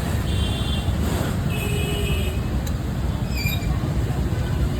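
Steady low rumble of road traffic, with a few faint short high chirps and a brief falling squeak about three and a half seconds in.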